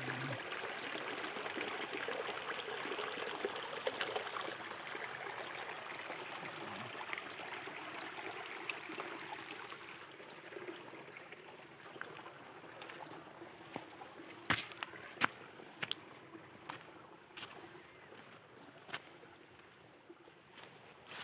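Water trickling and flowing steadily, fading in the second half, with scattered sharp clicks and knocks, the loudest a pair about two-thirds of the way through.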